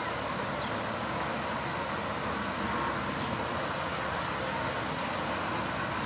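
Steady, even rushing noise of distant city traffic, with no clear bird calls standing out.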